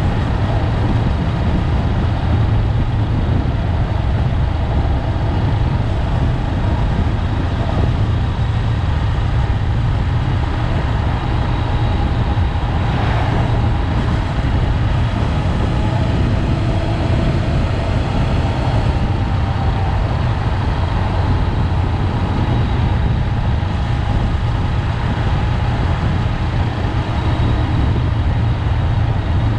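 Honda 400X parallel-twin motorcycle riding at a steady speed: a steady low engine drone under even wind and road noise, heard from a microphone on the bike or rider.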